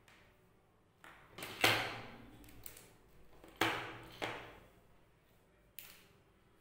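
About half a dozen short knocks and scrapes of tools and wires being handled on a wooden workbench, the loudest a little under two seconds in, with two more near the middle and a last one near the end.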